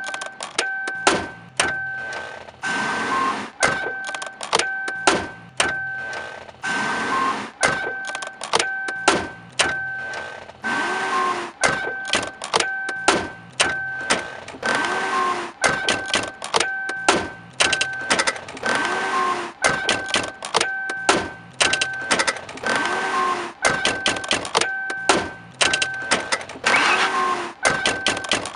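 A rhythmic mashup built from chopped and looped recordings of a Mercury Grand Marquis's own sounds. Short clicks and mechanical noises are cut to a steady beat, with a repeating two-note tone on each beat and a swooping sound about every four seconds.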